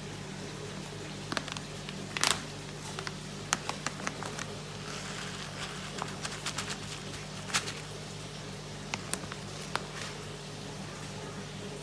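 Foil fish-food pouch crinkling and small soft granules pattering into a palm as it is tipped out, a string of sharp clicks and rustles with two louder crackles, over a steady low hum.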